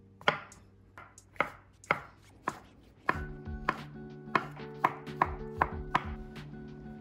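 Kitchen knife chopping food on a cutting board: sharp, evenly spaced strikes about twice a second, getting a little quicker in the second half.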